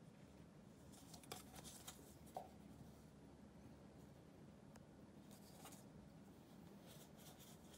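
Near silence, broken by a few faint scratchy rustles of a cat moving on a bedsheet and paper cups brushing against fur and cloth, in short clusters about a second in and again near the end.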